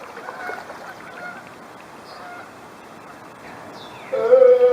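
Geese honking: faint scattered calls, then a loud, drawn-out honk about four seconds in.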